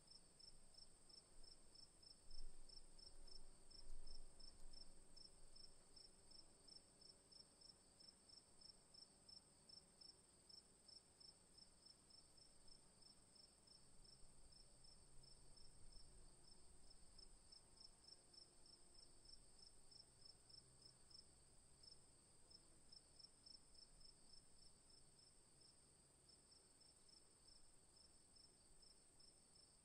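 Crickets calling on a summer night, faintly: one steady, continuous high trill with a second insect's evenly pulsed chirps just below it, about four a second. A low rumble rises briefly a few seconds in.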